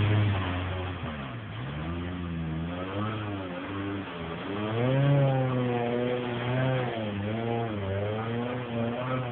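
Suzuki SJ off-roader's engine revving up and down repeatedly as it is driven over rough ground, the pitch falling and rising several times.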